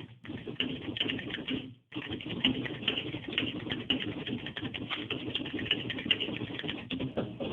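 Triumph-Adler 325 electronic typewriter automatically printing a stored line from its memory: a rapid, even run of strikes that breaks off briefly about two seconds in, then carries on.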